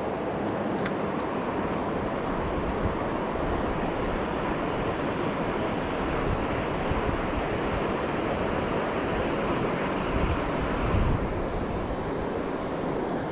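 Steady rush of fast-flowing river water running over rocks, with low rumbles of wind on the microphone, strongest about ten seconds in.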